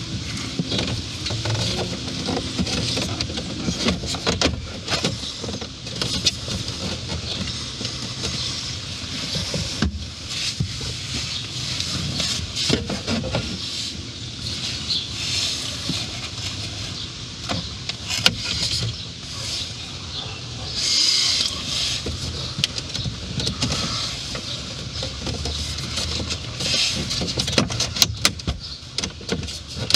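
Hands working plastic dash trim and wiring, with scattered sharp clicks and knocks over rustling handling noise.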